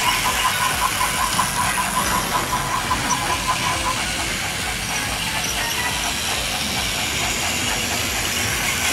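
Plarail battery-powered toy train running on plastic track: a steady motor whir with the rattle of its wheels. A rapid string of short high beeps sounds through the first four seconds or so.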